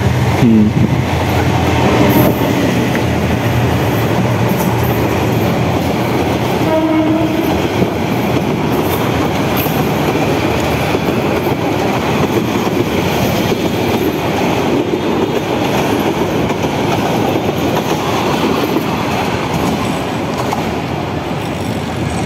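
Passenger train passing close by: a diesel locomotive followed by a long string of coaches, with a loud, steady rumble and clatter of wheels on the rails.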